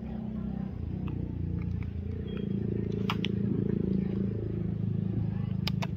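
A motor running steadily with a low, even drone. A few sharp clicks come about three seconds in and again near the end.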